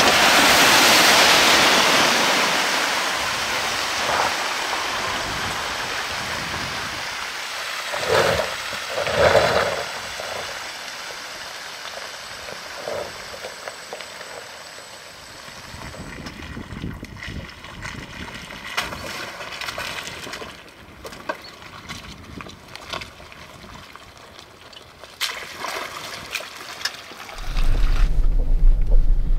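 Mercedes EQC 4x4² electric SUV ploughing through a muddy water hole: a loud rush of splashing water that fades over several seconds, followed by two shorter splashes and quieter sloshing. A low steady noise starts near the end.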